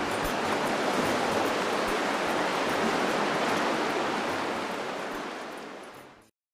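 Rushing river water, a steady even noise that fades out near the end.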